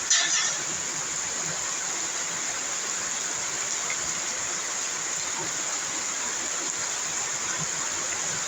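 Rain falling steadily, an even hiss, with a short, sharp louder hiss right at the start.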